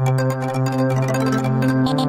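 Background music: held notes over a steady low bass note, with the bass moving to a new note near the end.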